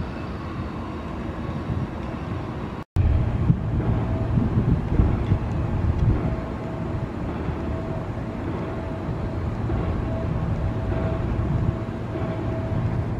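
VIA Rail passenger train's diesel locomotive approaching, a steady low drone and rumble, with a faint tone repeating about every two-thirds of a second. The sound cuts out briefly about three seconds in.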